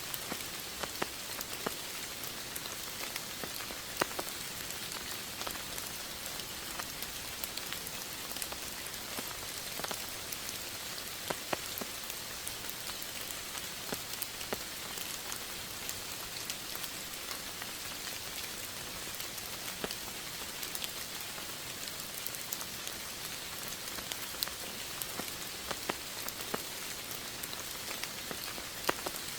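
Steady rain falling, an even hiss with scattered sharper taps of individual drops striking a surface.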